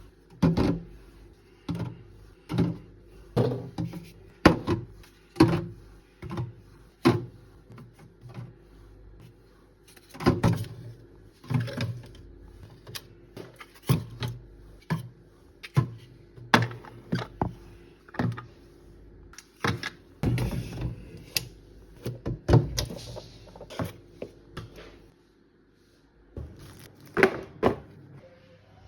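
Groceries being put into a fridge: irregular knocks and clunks of containers and packages set down on the shelves, over a steady low hum.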